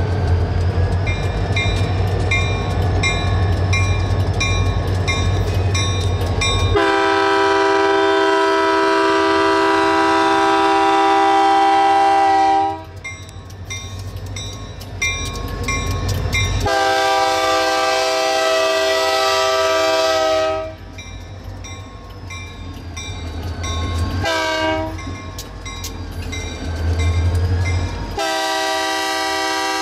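Diesel locomotive's chord horn blowing the grade-crossing signal: two long blasts, a short one, then a long one. Before the horn, and between the blasts, the locomotive's diesel engine rumbles low.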